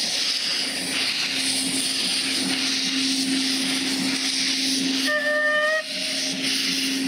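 Bagnall saddle-tank steam locomotive starting a train, with a steady hiss of steam from its open cylinder drain cocks and a steady low tone underneath. A short whistle blast sounds about five seconds in.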